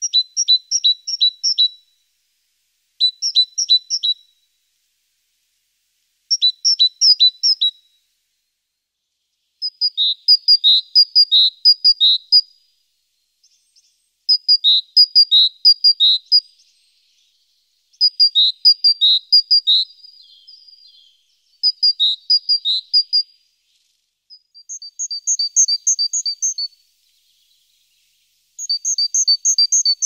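A small songbird singing: about nine short phrases of quick, high two-note units, one phrase every few seconds.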